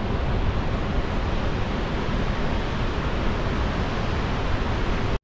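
Steady rushing noise of a fast river and a waterfall in a rock canyon, mixed with wind buffeting the microphone.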